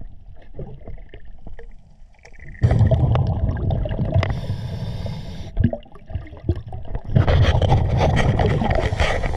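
Diver breathing underwater through a regulator, heard from a head-level camera: two long rushes of exhaled bubbles, one about three seconds in and another near the end, with quieter inhale breaths and small clicks between.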